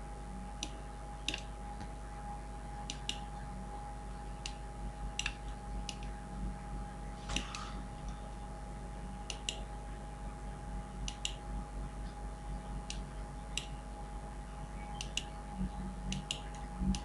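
Faint, irregular computer mouse and keyboard clicks, about one a second, over a steady low electrical hum.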